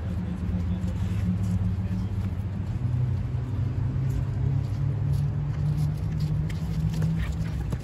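A steady low engine-like hum, dropping slightly in pitch about three seconds in and rising again near the end.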